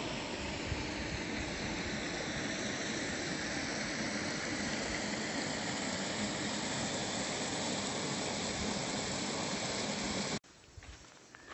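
River water rushing, a steady, even noise that cuts off abruptly about ten seconds in.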